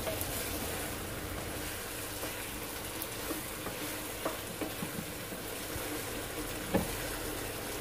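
Beef and vegetable stir fry sizzling steadily in a wok as a wooden spatula stirs it, with a few light knocks of the spatula against the pan; the dish is done cooking.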